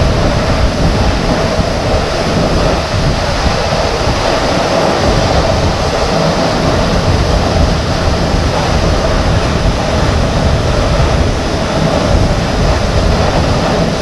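Loud, steady rush of a waterfall heard close up, an even roar of falling water heavy in the low end.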